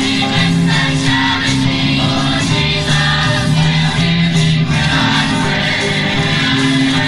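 A church congregation singing a gospel hymn together, with held notes.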